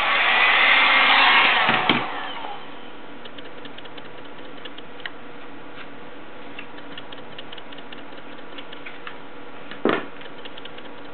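Reflective vinyl being worked onto a plastic helmet with a felt-edge squeegee: a rush of scraping noise for about two seconds, then soft scattered ticks and one sharper knock near the end.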